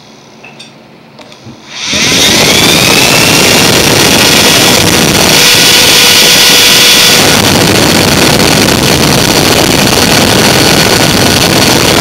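Small DC motor from a Dirt Devil broom vacuum, run on a 12-volt power supply through alligator clips. A few small clicks as the clips touch, then about two seconds in the motor spins up with a rising whine and runs at a loud, steady high-speed whir, which shows the motor works.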